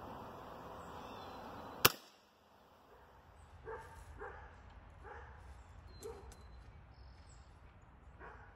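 A single sharp shot from a Hatsan Invader Auto .25-calibre semi-automatic PCP air rifle, about two seconds in, over steady outdoor background noise. A few faint short animal calls follow.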